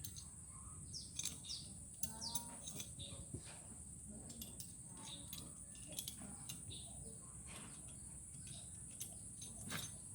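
Birds chirping over a steady, high insect drone, with scattered light clicks.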